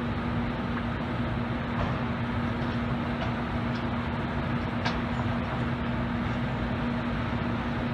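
Standing ICE 1 high-speed train power car running its ventilation blowers: a steady rushing noise with a constant low hum.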